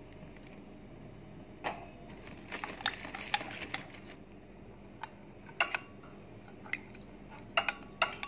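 A spoon stirring a thin flour batter in a glass bowl, with irregular light clinks and taps against the glass and a soft wet squish.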